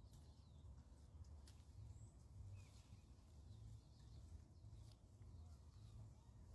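Near silence: faint outdoor ambience with a steady low rumble, a few faint clicks and a few faint, brief high chirps.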